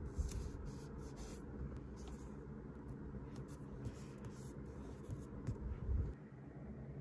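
Paper being handled at a desk while journaling: irregular light rustles and scratches, with soft bumps at the start and about six seconds in, over a steady low hum.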